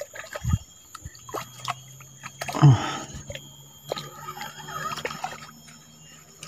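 Spinning reel being cranked to wind in a small hooked fish: a faint steady whir with scattered small clicks of the reel and handling. A short, low, falling vocal sound comes about two and a half seconds in.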